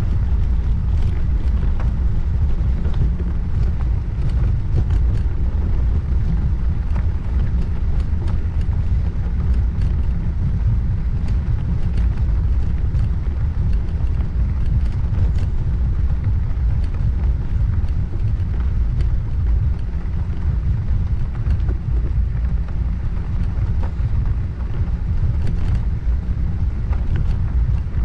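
Wind buffeting a bike-mounted action camera's microphone and tyre rumble from a bicycle riding along, a steady low rumble with scattered small ticks and clicks.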